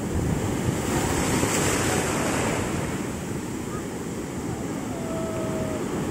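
Sea waves washing onto the beach, with wind buffeting the microphone; the surf swells louder about a second in and eases off after.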